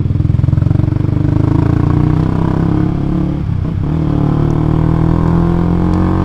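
Motorcycle engine with an RX8 aftermarket exhaust running under way; it eases off briefly a little past halfway, as at a gear change, then rises slowly in pitch as it pulls again.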